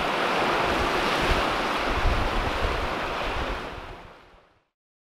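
Lake Superior waves washing on a rocky shore, with wind rumbling on the microphone. The sound fades out near the end.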